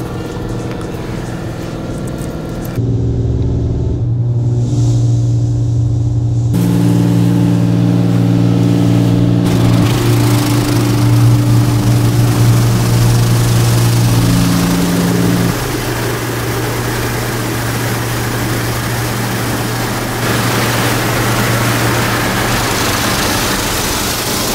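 Automatic car wash heard from inside the car: a steady machinery hum that shifts in pitch a few times, over the hiss of water spraying on the windows. The hiss grows louder after about ten seconds.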